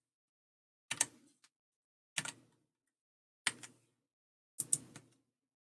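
Four sharp clicks from the computer being operated, a little over a second apart, each a quick press and release, as the slideshow is exited and the recording is wound up.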